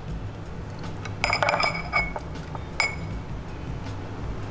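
Glass clinking: a few short ringing clinks a little over a second in, then one more near three seconds.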